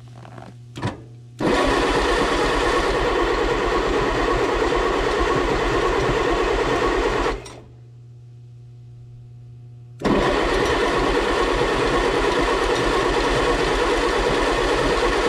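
Starter motor cranking the 1957 Allis-Chalmers IB's four-cylinder engine in two long bursts of about six seconds each, turning it over steadily without the engine catching.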